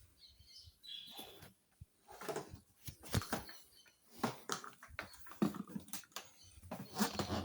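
Irregular clicks, knocks and scraping of an electric paint spray gun being handled, with its motor not yet running.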